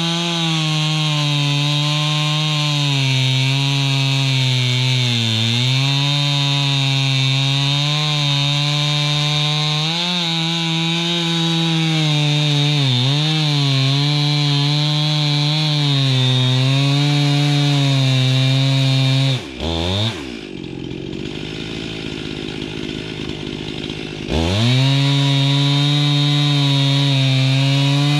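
Gas chainsaw running at high speed, its pitch dipping and recovering several times. About 19 seconds in it drops to idle, then revs back up to full speed about five seconds later.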